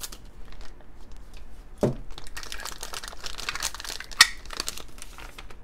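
A thin clear plastic toy bag crinkling as it is handled and pulled off a plastic toy, with a soft thump about two seconds in and a sharp click about four seconds in.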